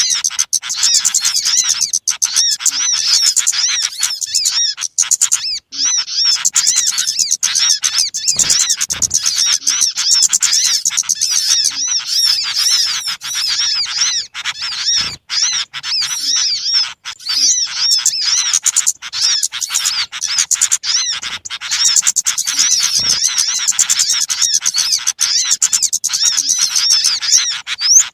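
Dense, noisy chorus of many small birds chirping and twittering in quick, overlapping high calls without a break: a bird-lure (pikat) recording made to draw small birds in.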